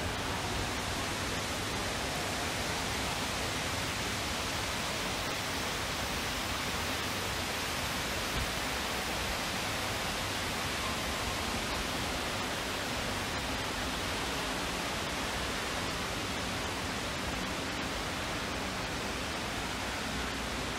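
Steady, unbroken rush of falling water.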